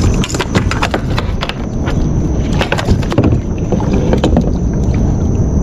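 Scattered clicks and knocks of handling on a plastic fishing kayak as a hooked snapper is hand-lined alongside, over a steady low rumble of wind on the microphone.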